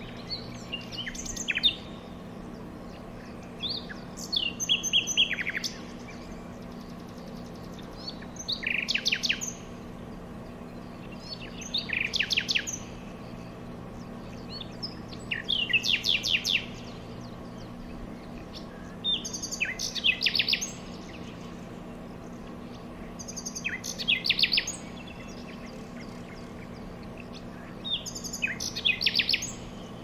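A songbird sings the same short phrase eight times, about every four seconds; each phrase is a quick run of down-slurred notes falling in pitch. A faint steady low hum runs underneath.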